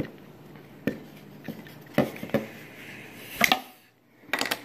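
Plastic end cap being worked off a cardboard mailing tube, with several short clicks and knocks; the loudest comes about three and a half seconds in, and a few more knocks follow near the end.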